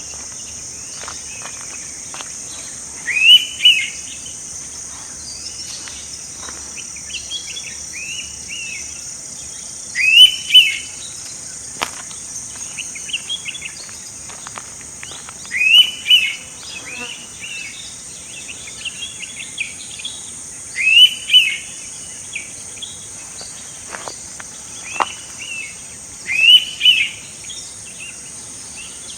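Indian pitta calling: a loud two-note whistle repeated five times, roughly every five to six seconds. Underneath are a steady high insect drone and softer calls of other birds.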